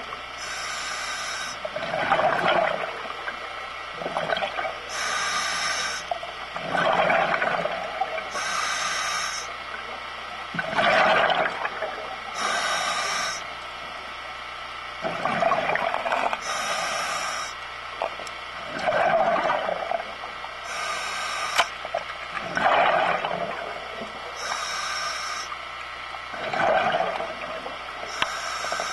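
Scuba regulator breathing underwater: a hiss as air is drawn through the demand valve, then a gurgling burst of exhaled bubbles, repeating about every four seconds.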